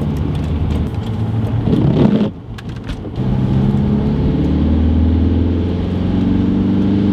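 Audi A4 engine heard from inside the cabin while driving. It swells, drops away for about a second around two seconds in, then pulls again and rises steadily in pitch as the car accelerates.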